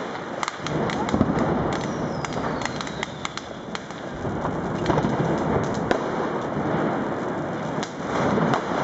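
Firework fountain spraying sparks with a continuous hissing rush, amid many sharp crackles and firecracker bangs. A faint falling whistle passes about two seconds in.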